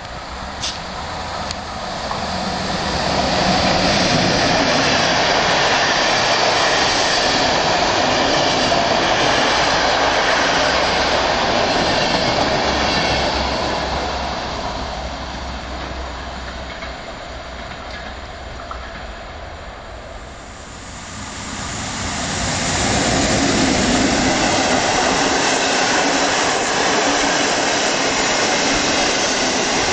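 Electric-locomotive-hauled passenger trains passing at speed close to the track: a steady rushing rumble of wheels on rail. It swells over the first few seconds, fades off around the middle as the first train goes by, and swells again from about two-thirds of the way through as a second train passes.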